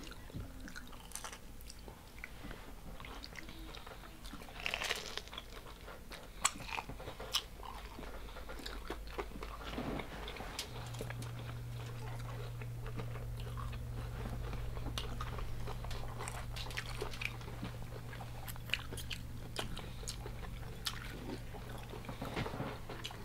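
Crunchy biting and chewing of deep-fried, Hot Cheetos–crusted seafood, with scattered crackling crunches close to the microphone. A steady low hum comes in about halfway through.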